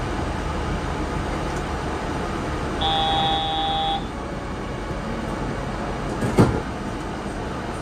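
Yurikamome 7500 series rubber-tyred automated guideway train running steadily between stations. A steady electronic tone sounds for about a second, nearly three seconds in, and a single sharp knock comes about two seconds later.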